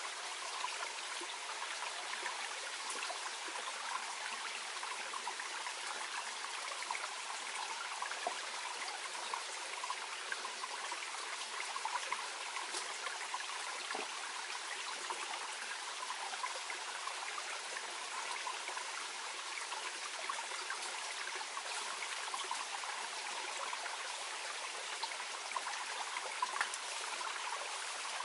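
Clear spring-fed mountain stream flowing gently, a steady babble and trickle of water with no deep rumble.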